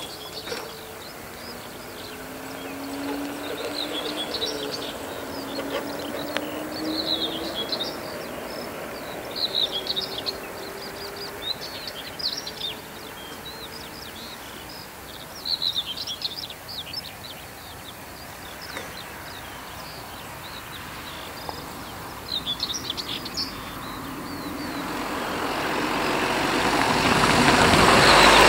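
Small birds chirping in short bursts, over the drone of a motorcycle engine that rises slowly in pitch as it pulls away. Near the end an estate car approaches, its engine and tyre noise growing steadily louder.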